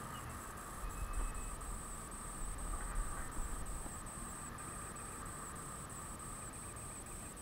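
Steady high-pitched insect chirring, with low rumbling bumps on the microphone between about one and three and a half seconds in.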